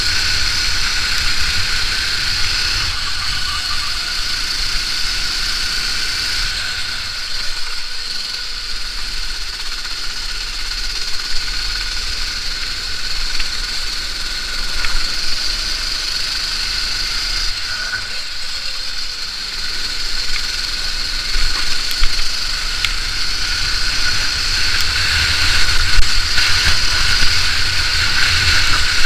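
Onboard sound of a Sodi racing kart's engine running hard on track, a steady loud drone mixed with wind and chassis vibration, with a few short knocks later on.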